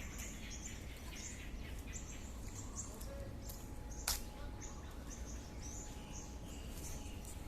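Small birds chirping, many short high calls repeating, over a low steady rumble of outdoor background noise; a single sharp click about four seconds in.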